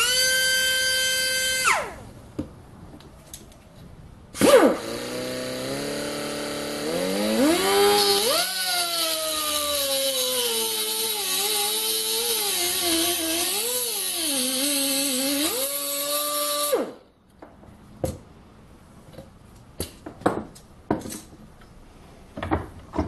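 Small hand-held grinder with a thin abrasive cut-off disc slitting a steel tube held in a vise. A high whine winds down in the first two seconds. About four seconds in the grinder starts with a rising whine and runs with its pitch wavering and dipping as the disc bites, then shuts off about 17 seconds in. A few sharp metallic clicks follow.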